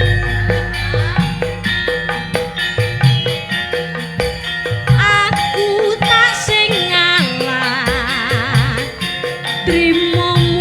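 Javanese gamelan-style band playing an instrumental passage between sung lines: regular drum strokes under ringing metallophone tones, with a wavering melody line over the middle of the passage.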